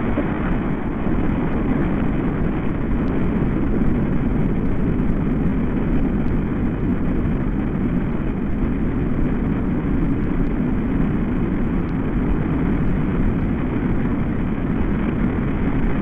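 Wind rushing through tree leaves, slowed and pitched down by editing effects into a steady low rush with no breaks or rhythm.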